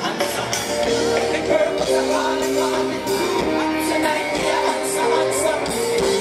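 Live concert music, with long held notes over the band and a voice singing.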